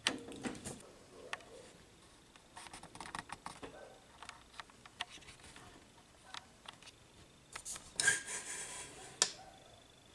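Handling noise at a record turntable: scattered light clicks and taps, with a short scraping rustle about eight seconds in.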